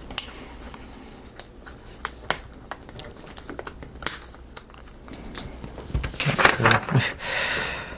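Wooden marble-run pieces clicking and tapping against each other as they are handled and sorted, with the clicks bunching up near the end and a short rustling scrape just before it.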